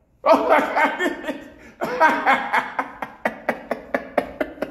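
A man laughing hard: two long drawn-out laughs, then a quick run of short "ha" bursts about five a second.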